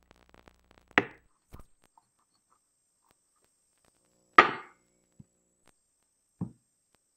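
A few sharp knocks on a laid dinner table, at uneven times; the loudest comes just over four seconds in, with another strong one about a second in and one near the end.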